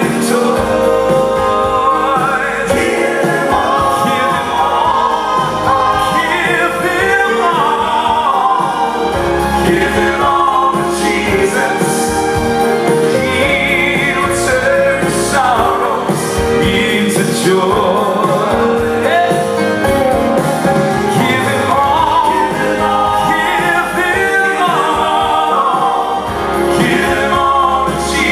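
Male southern gospel quartet singing together in harmony into handheld microphones.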